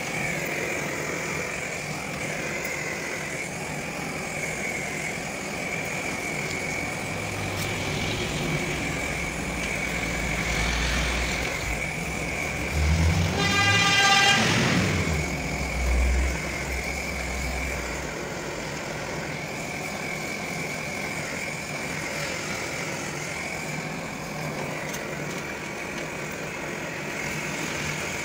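A motor vehicle passes with a low engine rumble and sounds its horn briefly about halfway through, over the steady hiss of a gas soldering torch flame.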